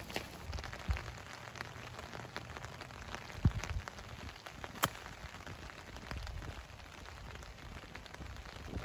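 Heavy rain pattering steadily, with scattered drops ticking close by. A low thump comes about three and a half seconds in and a sharp click about five seconds in.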